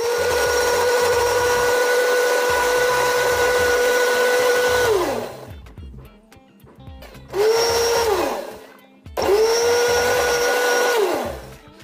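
Electric mixer grinder with a small steel chutney jar running in three bursts: one long run of about five seconds, then two short pulses, each with a steady high whine that drops in pitch as the motor spins down. It is grinding chopped raw mango, green chillies and coriander with a little water into a chutney paste.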